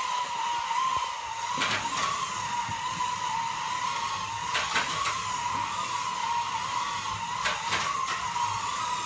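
Small electric motors of racing slot cars whining steadily on a plastic track, the pitch wavering slightly, with a sharp click about every three seconds.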